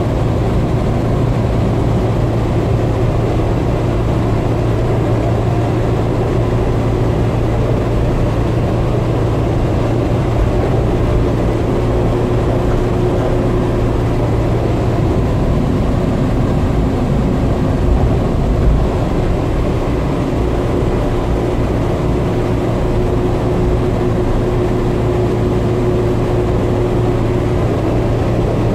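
Steady low rumble of a Newark Airport AirTrain monorail car running along its guideway, heard from inside the cabin. A faint steady whine comes in twice, midway and again in the last third.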